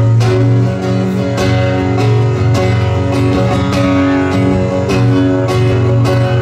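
Live band playing the instrumental intro of a country song: strummed acoustic guitar over bass and a steady beat, amplified through the stage PA.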